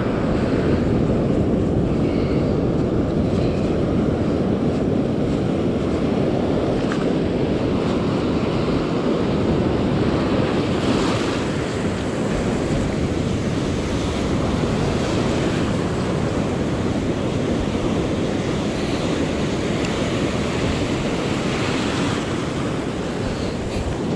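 Ocean surf breaking and washing around the shallows in a steady rushing wash, with wind on the microphone.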